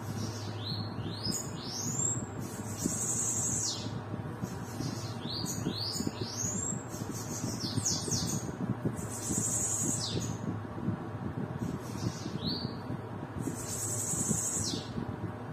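Caged bananaquits singing high, thin, buzzy songs with quick sweeping notes and trills, one phrase after another every second or two, over a low steady hum.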